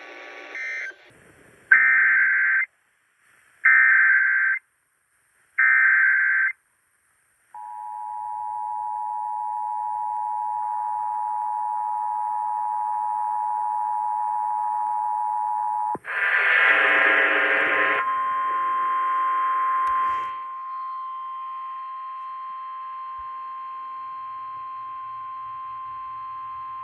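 Emergency Alert System tones: three short screeching SAME header data bursts, then the steady two-tone EAS attention signal for about eight seconds. About sixteen seconds in comes a harsh two-second burst, then the single steady 1050 Hz NOAA Weather Radio alert tone. Together these announce a new severe thunderstorm warning.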